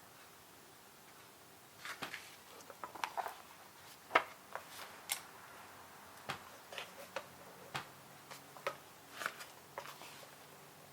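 Computer keyboard keys clicking in an irregular run of taps, starting about two seconds in and stopping near the end.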